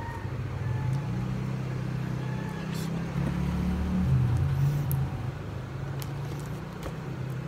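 A low, steady hum that grows louder from about one second in and eases back after about five seconds, with a few light clicks of a camera strap being handled.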